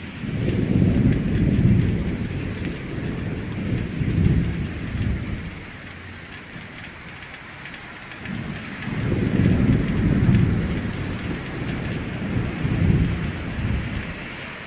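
Thunder rumbling in two long rolls, each swelling several times. The first roll is at the start and the second begins about eight seconds in, both over a steady hiss of rain.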